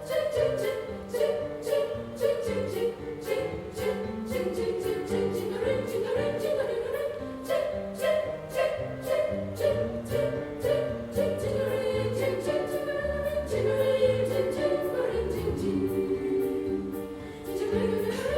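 Women's choir singing a Christmas carol in parts, over an accompaniment with a steady beat of short, bright strokes about three times a second.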